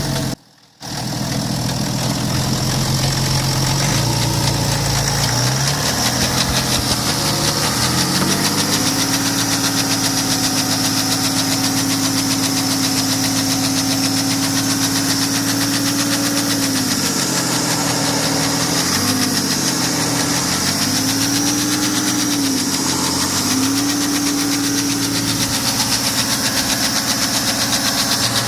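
BMW N57D30 3.0-litre straight-six diesel of a 525d idling just after a cold start, with a knocking noise in its running. The idle settles during the first several seconds, then sinks and recovers three times past the middle.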